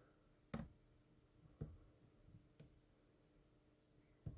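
Four faint, sharp clicks about a second apart from lock picks and pin tumblers inside an American 5200 padlock, as tension is eased off to reset an overset pin.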